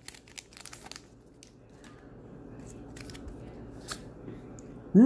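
Faint rustling and light clicks of a freshly opened trading card booster pack and its cards being handled and flipped through. Right at the end a voice starts a loud, drawn-out sound that slides in pitch.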